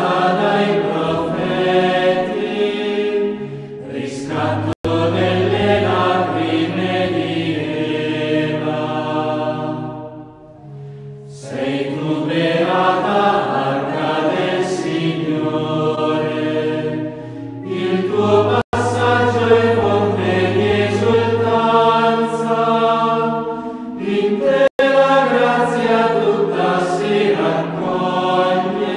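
Choral chant: voices sing long held notes over a low sustained drone, in slow phrases with a pause about ten seconds in. The sound cuts out for an instant three times.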